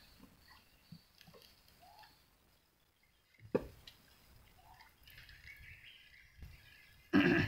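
Quiet river ambience: small water drips and faint bird calls, with a sharp short sound about halfway through and a brief louder sound near the end.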